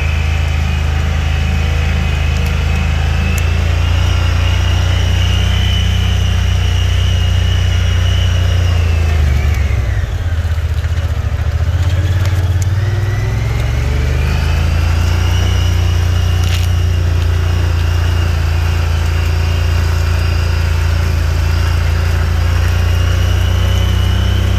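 Off-road vehicle's engine running steadily, dropping in pitch about ten seconds in as it slows, then rising again as it speeds back up.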